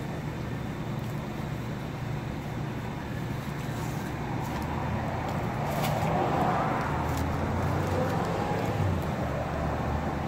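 Road traffic close by: a steady low rumble that swells in the middle as a vehicle passes, then eases off. A few sharp crackles of a paper hot dog wrapper being opened.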